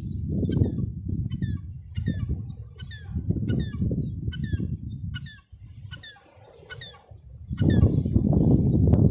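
Gulls calling repeatedly in short, downward-sliding cries, one or two a second, over a loud low rumble that fades for a couple of seconds midway and returns near the end.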